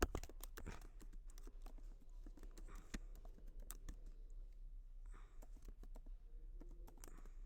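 Faint typing on a computer keyboard: irregular key clicks, the sharpest right at the start.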